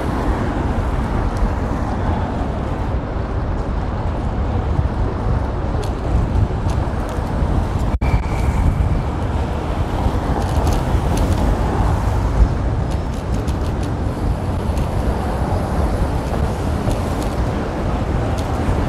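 City street traffic heard from a moving bicycle: a steady rush of car and road noise, with a momentary dropout about eight seconds in.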